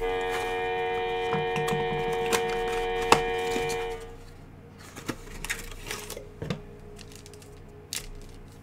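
A held musical chord for about four seconds, with clicks over it, then stops; after it, cardboard packaging is torn open and foil card packs crackle and rustle as they are pulled out of a trading-card mystery box.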